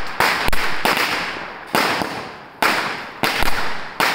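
Diwali fireworks going off in a string of loud bangs, about eight in four seconds at uneven spacing, each trailing off before the next.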